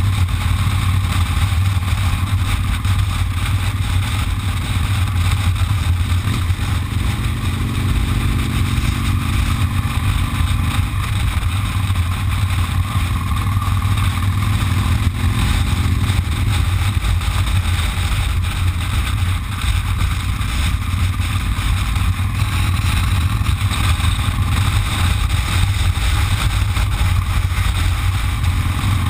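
Cruiser motorcycle's engine running steadily at cruising speed, a constant low drone mixed with wind and road noise, heard from a camera mounted on the bike.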